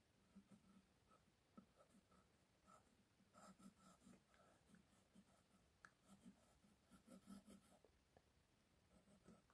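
Wooden graphite pencil scratching faintly on paper in short, irregular sketching strokes.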